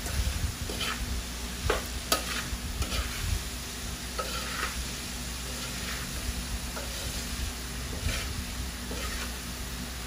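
A spatula stirs and scrapes diced pig offal around a wide metal pan over a low sizzle, in irregular strokes. There are two sharp knocks of the spatula on the pan about two seconds in.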